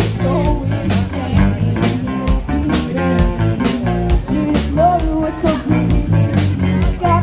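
A live rock band playing: a female lead singer over electric guitar, bass guitar and a drum kit keeping a steady beat with cymbal hits.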